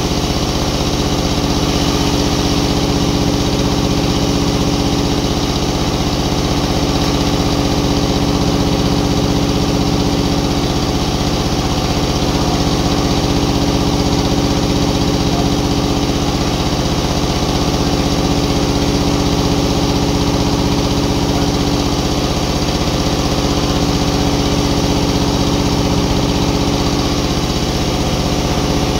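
Sawmill machinery engine running steadily at an even speed, its pitch unchanging throughout.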